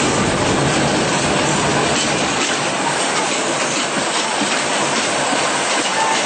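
Passenger train coaches rushing past close by, their wheels rattling and rushing on the rails in a steady loud noise; the deep rumble underneath drops away a couple of seconds in.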